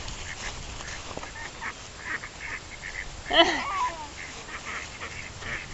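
Brown female duck quacking: short, soft quacks repeated in quick succession, and one louder quack about three and a half seconds in.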